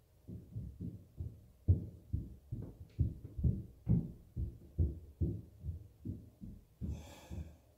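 Low, dull thumping coming through the ceiling from the unit above, a fast steady run of about four or five thumps a second, the neighbour noise being documented. A brief hiss sounds near the end.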